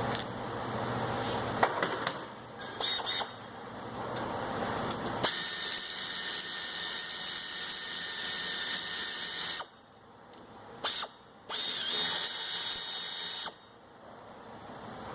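A power tool run in bursts that start and stop abruptly: a brief one, a long one of about four seconds, a short blip, then one of about two seconds. A few sharp clicks come before them.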